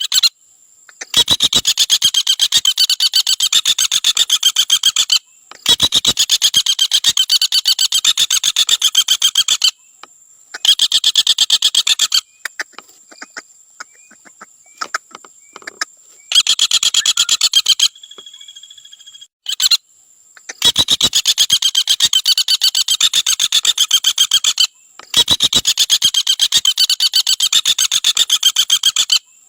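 Common flameback woodpecker giving its rapid rattling trill: long runs of fast, evenly repeated notes, each run lasting a few seconds, broken by short pauses, with a few scattered single notes in the middle.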